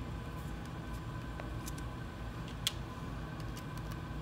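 Faint clicks and ticks of small screws and extruder parts being handled and turned by hand, with one sharper click a little after halfway, over a steady low background hum.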